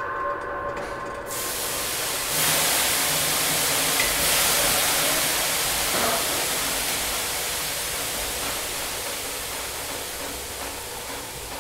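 A hissing rush of noise that swells about two seconds in and slowly fades.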